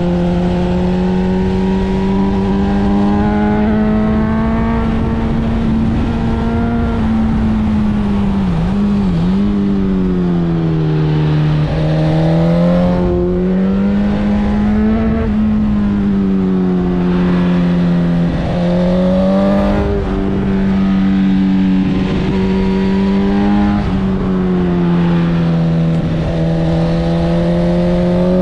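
Motorcycle engine pulling at fairly high revs, its pitch rising and falling with the throttle through a run of bends. There are two quick dips in revs about eight and nine seconds in. A steady rush of wind and road noise runs underneath.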